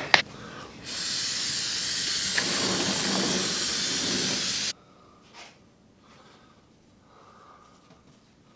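Aerosol can of spray adhesive spraying in one steady hiss of about four seconds, starting about a second in and cutting off suddenly.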